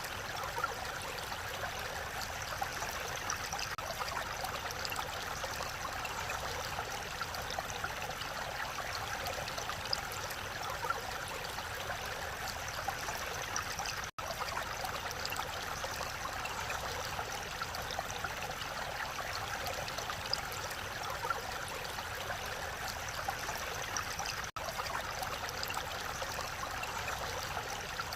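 Mountain valley stream flowing steadily, a continuous rush of water, broken by two very brief dropouts, one about halfway through and one near the end.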